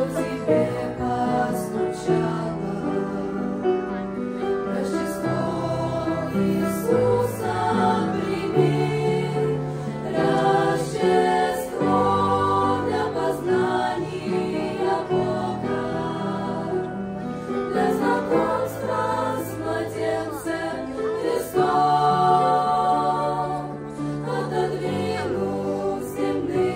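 A choir singing a Christmas song in Russian, with musical accompaniment.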